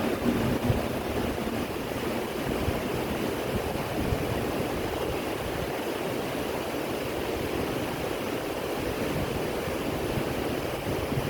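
The Yamuna, a Himalayan mountain river, gushing steadily.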